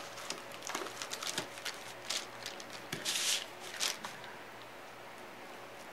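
Hands handling a wax-coated wooden panel on a tabletop: scattered light taps and rustles, with a brief scrape about three seconds in, stopping about four seconds in.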